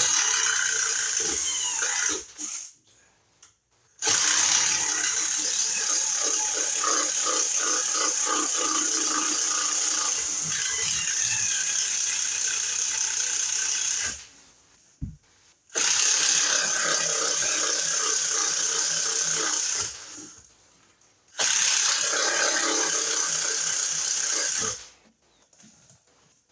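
A cordless power tool running in four stretches, the longest about ten seconds, stopping briefly between them.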